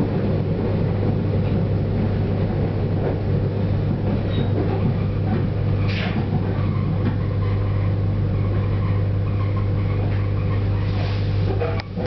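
Train running noise heard from inside a passenger car: a steady low hum with an even rumble of wheels on the track, and a brief higher hiss about halfway.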